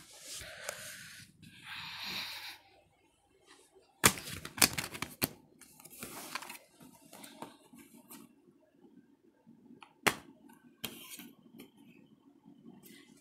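A plastic DVD case and disc being handled: rustling at first, then several sharp plastic clicks and snaps, the loudest about four seconds and ten seconds in, as the disc is worked on and off the case's centre hub.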